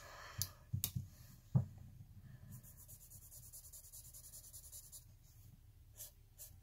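Faint scratching of a Sharpie fine-point marker's felt tip on notebook paper, drawn in quick back-and-forth strokes for a couple of seconds, with a few light clicks before and after.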